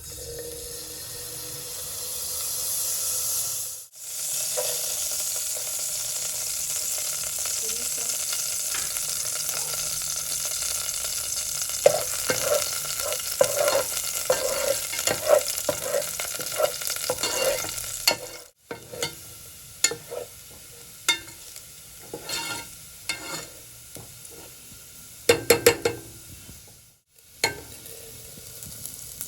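Food frying and sizzling loudly in hot oil in a pan, with a utensil stirring and knocking against the pan from about halfway through the sizzle. After a sudden break the sizzle is much quieter and the stirring clicks and knocks stand out.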